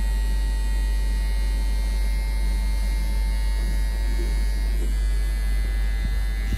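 Electric hair clippers running steadily with a low hum, cutting short hair.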